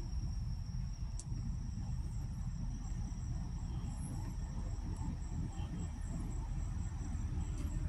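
Insects singing: a steady high thin whine with a rapidly pulsing chirp above it, over a low continuous rumble.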